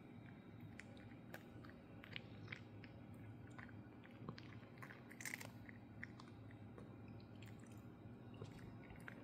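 A cat chewing crunchy Temptations treats: faint, irregular crisp crunches, with a louder flurry about five seconds in.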